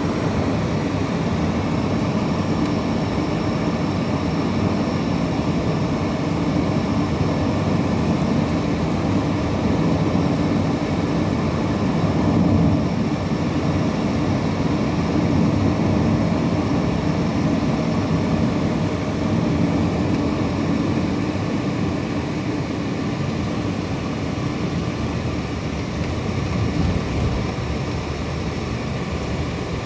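Steady road and engine noise of a car driving at a constant pace, heard from inside the cabin.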